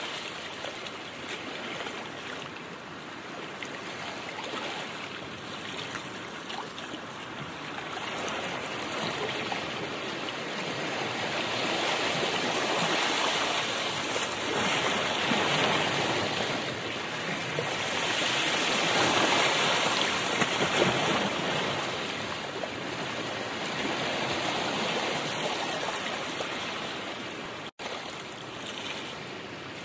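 Steady rushing, water-like noise that swells and fades every few seconds, with a brief dropout near the end.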